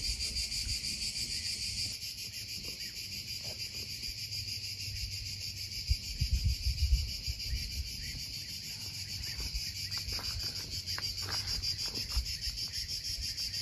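Steady, high-pitched chorus of summer insects, unbroken throughout, with a few soft low thumps and rustles in the middle.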